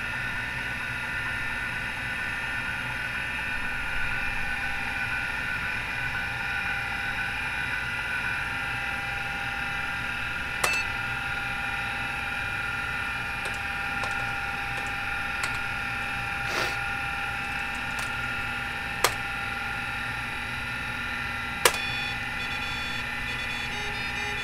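MiniScribe 2012 MFM hard drive spinning with a steady high whine from its noisy spindle bearings. A few separate sharp clicks sound over it in the second half.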